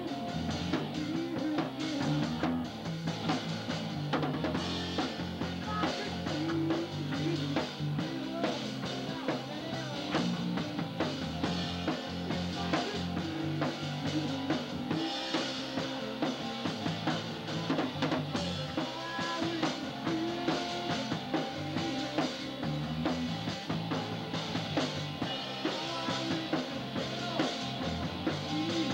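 Rock band playing live: a drum kit keeping a steady beat with bass drum and rim hits, over guitar and bass guitar.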